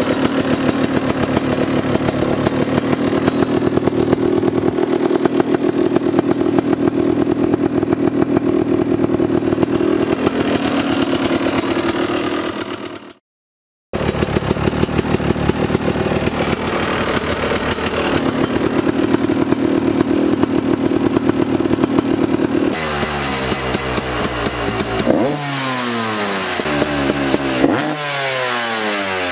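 KTM EXC two-stroke engine breathing through an FMF Powercore 2 silencer, idling steadily with a rapid crackle of firing pulses. Near the end the throttle is blipped several times, the revs rising and falling.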